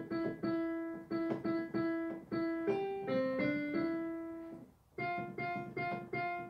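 Piano playing a simple beginner melody one note at a time, with many repeated notes at a slow, steady pace. There is a brief break about five seconds in before the repeated notes start again.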